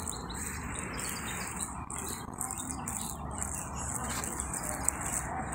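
Outdoor yard ambience: small birds chirping, over a high pulsing buzz of insects and a steady background hiss.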